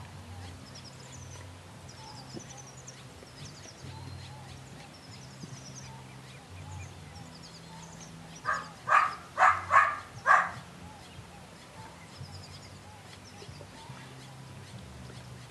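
An animal gives five short, loud calls in quick succession about eight to ten seconds in, over faint birdsong.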